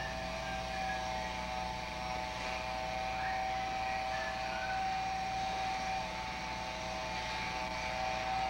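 Steady mechanical whine with a few close pitches held at a constant level, over a low steady hum.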